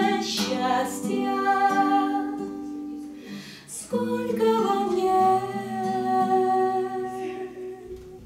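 A woman singing long held notes to her own strummed nylon-string classical guitar, in two phrases with a short break about three and a half seconds in, the second fading away near the end.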